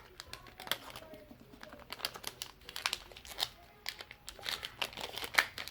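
Irregular light clicks, taps and crinkling from hands and small tools handling a phone's charging-port board on the repair bench, with a few sharper ticks.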